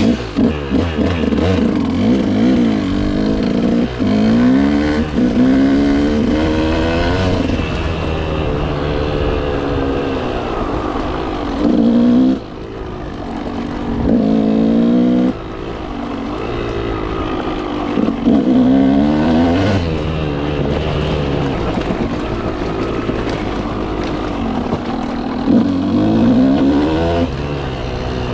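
KTM motorcycle engine under way, revving up and easing off over and over, its pitch rising and falling with a few brief throttle-offs.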